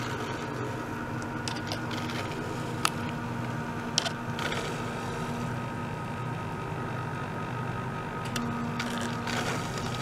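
Small circulation pump running with a steady hum, liquid and air flowing through its plastic tubing. A couple of sharp clicks come about three and four seconds in.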